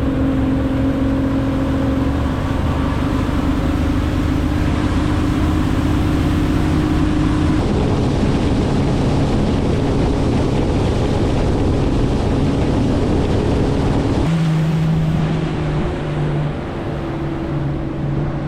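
Boat motor running under way with a steady rush of wind and water. The engine note shifts about halfway through, then drops and gets a little quieter near the end as the boat slows.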